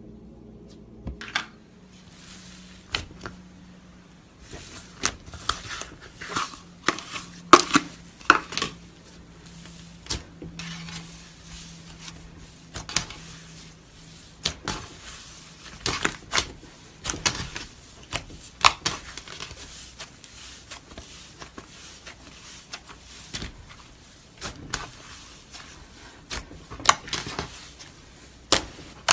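Cloud slime being squeezed and stretched by hand, crackling and popping in irregular runs of sharp clicks.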